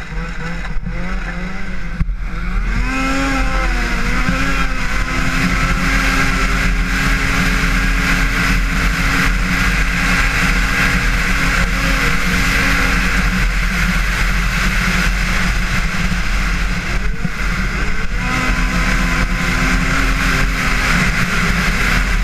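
Arctic Cat 8000 XF High Country Limited snowmobile's two-stroke twin engine, heard from the rider's seat, accelerating hard about two seconds in with its pitch rising, then held at high, steady speed. Around seventeen to eighteen seconds in the engine note drops briefly and climbs back up.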